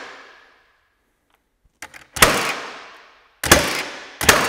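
Milwaukee M18 cordless framing nailer firing three times in the second half, a little over a second apart. Each shot is a sharp bang that dies away over about a second. The 3.5-inch ring-shank nails are not sinking into the dense pallet oak: they bend over and stand proud, "not even close".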